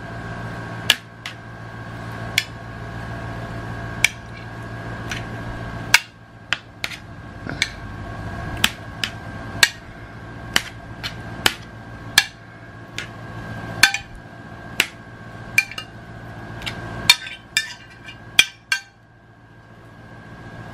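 Sharp, irregular clicks and taps on a metal baking sheet, about one a second, as seasoned meat pieces are laid out on it one by one. Under them runs a steady hum with a faint high whine.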